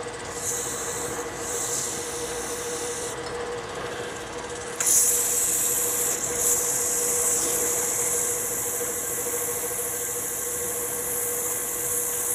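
Abrasive paper rubbing on a maple chalice stem spinning on a Robust wood lathe: a steady sanding hiss, louder from about five seconds in, over the lathe's steady hum.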